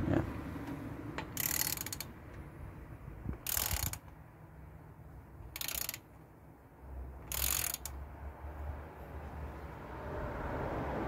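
A ratchet clicking in four short runs, about two seconds apart, as it backs off a valve spring compressor on a Ford CVH cylinder head. Each run lets the valve spring rise a little further onto its collets.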